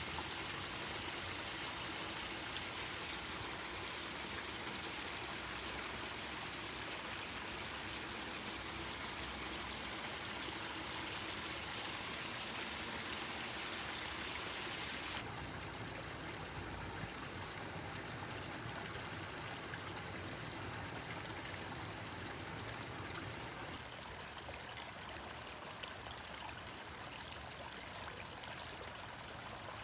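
Small stream babbling steadily over its bed. About halfway through it changes suddenly to a slightly quieter, duller sound.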